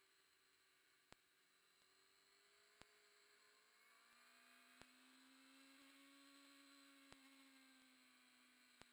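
Near silence: the recording has no audio, leaving only a faint hum and a faint click every two seconds or so.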